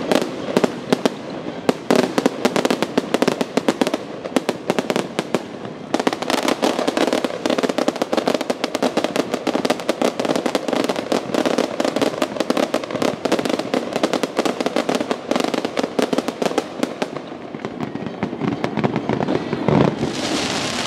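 Fountain fireworks spraying sparks with a dense, rapid crackle over a steady hiss. The crackling thins out near the end, leaving mostly a hissing spray.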